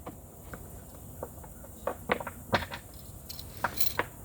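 A handful of sharp, irregular metallic clicks and clinks from hand tools and bolts being handled while a skid plate is bolted back on.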